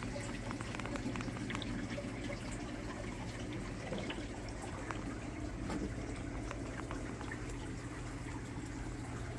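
Water circulating in a large reef aquarium: a steady trickling and bubbling with many small crackling splashes, over a low steady hum.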